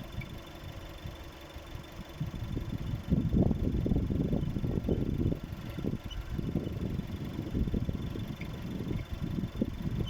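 Skoda Octavia A7 engine idling, heard from under the bonnet, with uneven low rumbling that gets louder about three seconds in.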